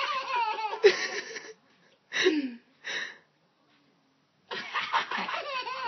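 A baby laughing hard in bursts: a long raspy laugh, two short ones around two and three seconds in, a pause, then laughing again near the end.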